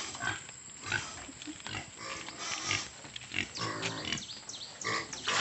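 Pig grunting in short, irregular calls as a bucket of feed is brought to its pen.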